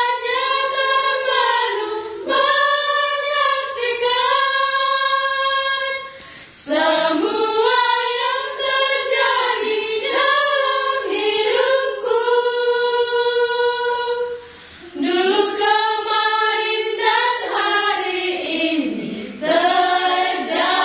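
A small group of women's voices singing a song together, in long held phrases broken four times by short pauses for breath.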